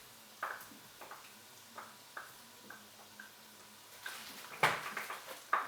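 Kitchen utensils clicking and knocking against cookware: about six light, widely spaced clicks, then a run of louder knocks near the end.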